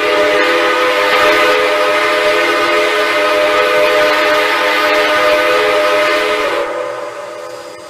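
Steam locomotive whistle blowing one long, steady chord of several tones with steam hiss, dying away about seven seconds in.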